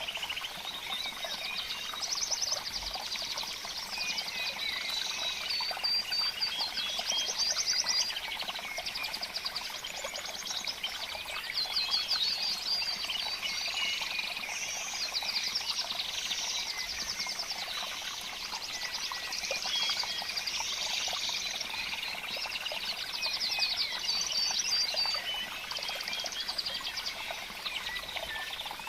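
Many small birds chirping and trilling at once, calls overlapping throughout over a steady background hiss.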